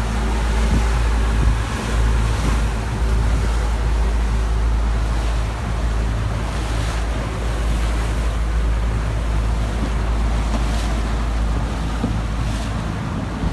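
Boat under way: a steady low engine hum with rushing water and wind buffeting the microphone.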